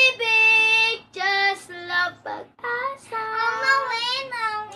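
Two young girls singing, holding long notes of about a second each with short breaks between phrases.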